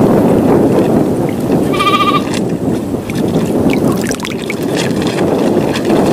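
Strong wind buffeting the microphone, a steady low rushing. About two seconds in, a brief high wavering call sounds over it.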